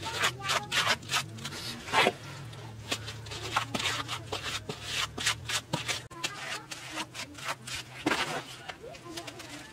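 Wet mud plaster being scooped, spread and smoothed onto a stone stove by a gloved hand and a flat wooden trowel: irregular scrapes, rubs and soft slaps.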